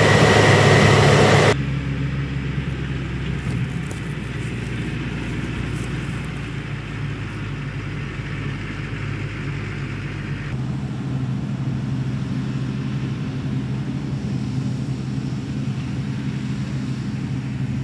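Farm machinery engines running steadily with a low hum. The sound changes abruptly about a second and a half in, and again a little past the middle, as if cut between different machines.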